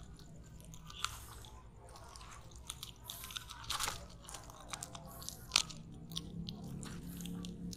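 Close-up handling noise of a nylon mesh landing net and a frog lure: crinkly rustling and scratching with a few sharp clicks, the sharpest about five and a half seconds in, as fingers work the lure's hooks free of the mesh.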